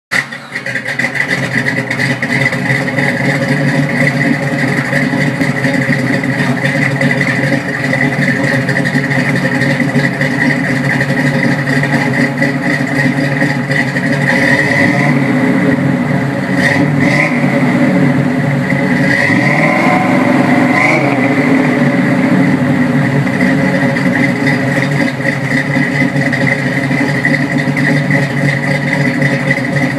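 1967 Chevrolet C10's 350 small-block V8 with a Competition Thumper cam, running through dual exhaust with Flowmaster 40 mufflers; it idles steadily, with the pitch rising and falling briefly about twenty seconds in.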